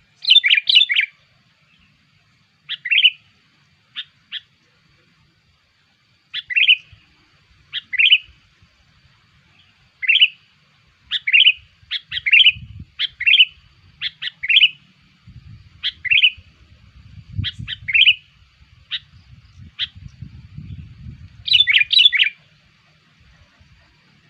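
Sooty-headed bulbul (kutilang) giving short, sharp chirping call notes, repeated about once a second with short gaps, with quick clusters of several notes at the start and again near the end.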